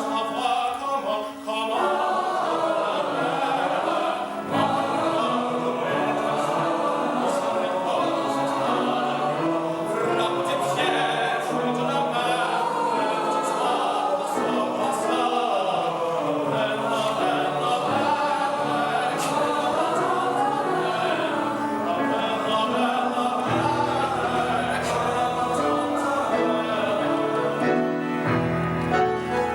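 Background music: a men's chorus singing, with a low accompaniment joining near the end.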